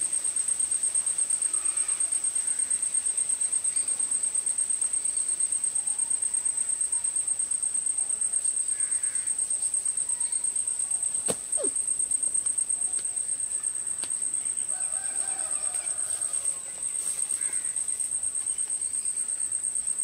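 A continuous high-pitched insect trill, steady and rapidly pulsing. Underneath are faint distant bird calls, with a longer call about fifteen seconds in and a single click a little past the middle.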